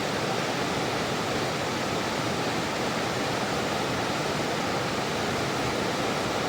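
Mountain river rushing over rocks: a steady, even wash of water noise.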